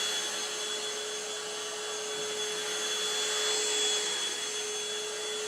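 Handheld cordless mattress vacuum cleaner running steadily as it is moved slowly over a bed, a steady motor whine over a rush of air.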